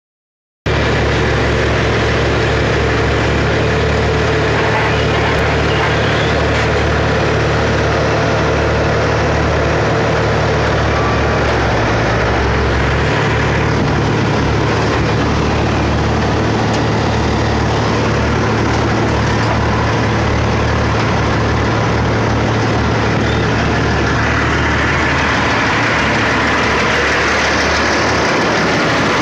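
Diesel semi-truck engine idling steadily close by, with a broader hiss of noise growing in the last few seconds.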